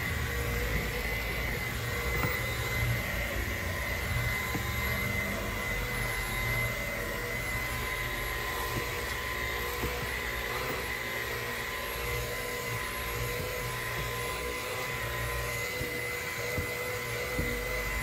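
AEG Ultimate 8000 cordless vacuum, used as a handheld with a brush nozzle, running steadily as it is worked over car carpet. It makes a rush of air with a steady high whine.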